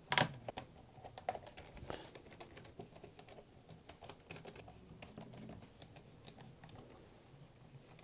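Faint, scattered small clicks and ticks of a Phillips screwdriver working screws out of a laptop's plastic bottom cover, with one sharper click just after the start.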